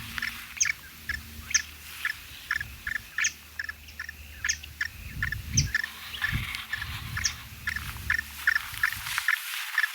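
Wetland birds calling, a dense chorus of short, sharp calls repeating several times a second, over a low rumble that stops about a second before the end.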